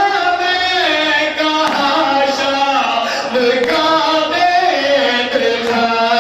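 A group of men reciting a noha, a Shia mourning lament, sung together in a melodic chant with long held notes.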